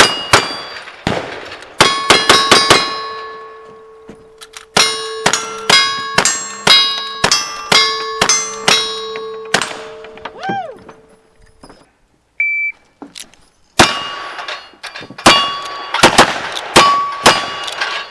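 Rapid gunfire from revolvers and a long gun at a cowboy action shooting stage, each shot followed by the clang and ring of struck steel targets. The shots come in quick strings, about two a second in the middle run. There is a lull after about ten seconds, in which a short high beep sounds before the shooting starts again.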